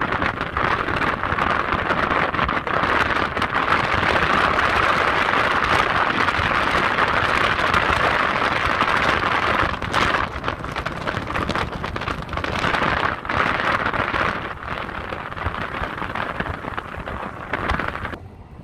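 Steady rushing road and wind noise of a car driving through a snowstorm. It eases a little about ten seconds in and drops away briefly near the end.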